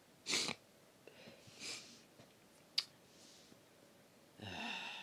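Breaths and handling noise close to a handheld phone's microphone: a short loud burst about a third of a second in, a softer one around one and a half seconds, and a sharp click just before three seconds. A person's voice starts near the end.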